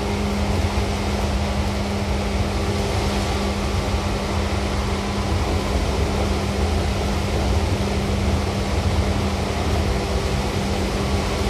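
Seibu 2000 series electric train running at a steady speed: a constant rumble of wheels and running gear with a steady hum.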